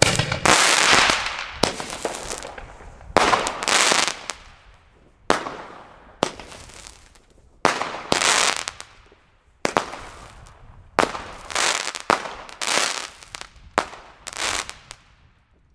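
A Category 2 consumer firework cake firing a string of shots, one every second or so. Each shot is a sharp pop followed by a fading hiss as the stars burst and burn out.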